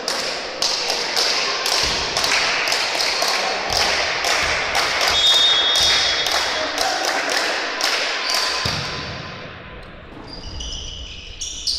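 Hands clapping in a steady rhythm, about three claps a second, echoing in a sports hall; the clapping fades out about eight seconds in.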